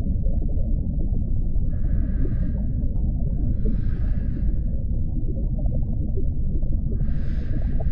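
Breathing through a scuba regulator: three hissy breaths, about two, four and seven seconds in, over a steady deep underwater rumble.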